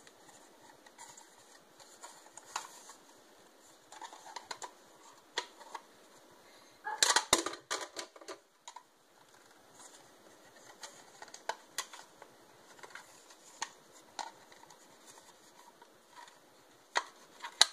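Small plastic clicks, snaps and rattles as a Ricoh SG 3110DNW ink cartridge's casing is worked apart by hand. There are scattered single clicks and a louder burst of clatter about seven seconds in.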